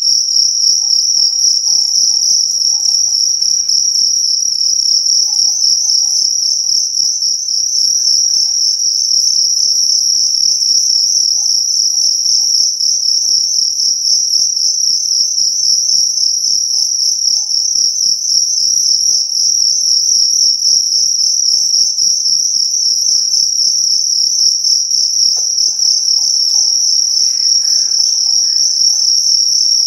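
Fighting crickets chirping in a loud, steady, rapidly pulsing trill that never breaks.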